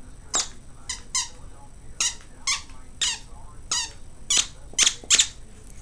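Squeaker inside a stuffing-free plush dog toy squeaking about ten times in short, high-pitched squeaks, roughly one every half second, as a Jack Russell terrier chews it; the loudest squeaks come near the end.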